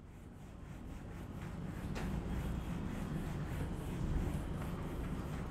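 Whiteboard duster rubbing across the board in repeated back-and-forth strokes, wiping off marker writing. The sound grows louder over the first two seconds, with one sharp click about two seconds in.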